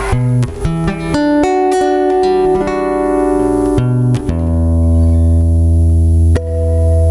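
Instrumental intro of a pop ballad: a quick run of plucked guitar notes, then about four seconds in deep sustained bass and held chords come in, with a chord change near the end.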